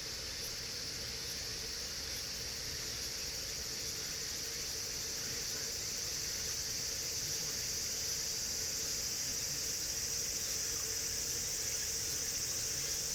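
Steady high-pitched insect chorus, droning on without a break and swelling slightly louder as it goes.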